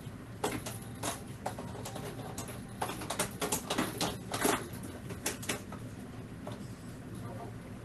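Makeup brush strokes sweeping on skin: a run of short scratchy swishes, a few early and then a dense flurry in the middle, over a low steady hum.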